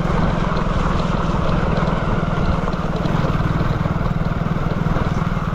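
Motorcycle engine running steadily under way, a fast even low pulse, with wind and rain noise on the handlebar microphone.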